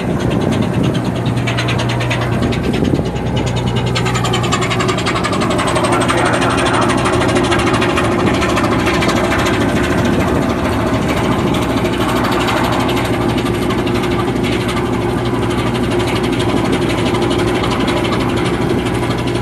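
Ship's engine running with a steady low hum under a constant noisy hiss.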